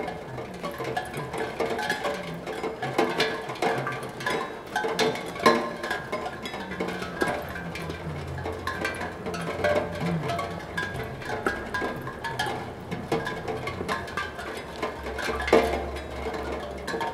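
Raindrops striking a steel tongue drum, plinking its tuned tongues at random into irregular, overlapping ringing notes.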